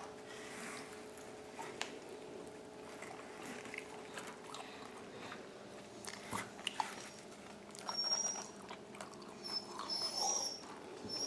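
Quiet room with a steady faint hum and soft handling noises, small clicks and rustles, as a pizza slice is flexed in the hands over its cardboard box. A few brief high squeaks come near the end.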